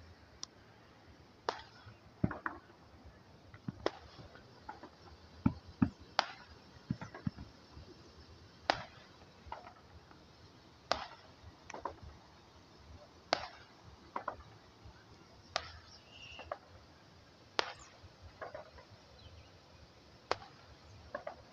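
Distant firecrackers popping about every two seconds, each pop followed a little under a second later by a fainter echo.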